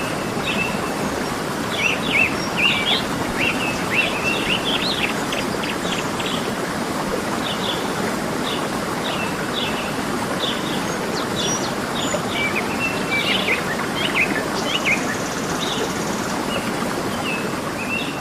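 Waterfall running with a steady rush of water, and birds chirping over it in quick runs of short, high notes, busiest in the first few seconds and again about two thirds of the way through.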